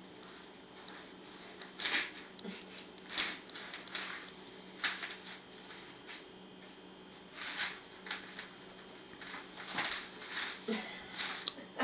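Long-haired cat rolling and rubbing on a cardboard scratching pad, its fur and claws scraping the cardboard in short scratchy rustles every second or two, as it reacts to valerian root.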